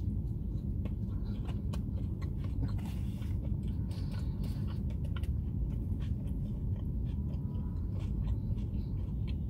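A person biting into and chewing a slice of pizza topped with capsicum, onion and corn: moist chewing with many small crunchy clicks. A steady low rumble runs underneath.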